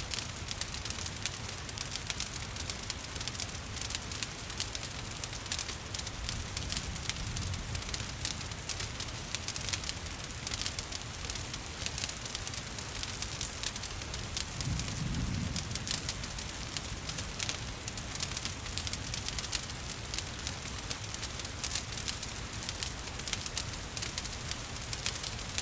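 Wood fire crackling with many small, sharp pops over a steady hiss of rain. There is a soft low rumble briefly about halfway through.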